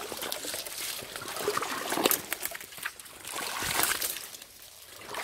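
River water trickling and splashing, with two louder swells of splashing about two seconds in and near four seconds.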